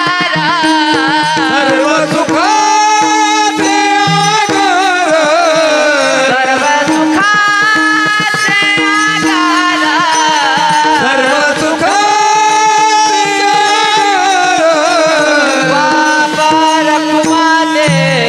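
A male kirtankar sings long, ornamented melodic phrases of a varkari abhang, the voice sliding slowly up and down, over a steady drone note and accompaniment.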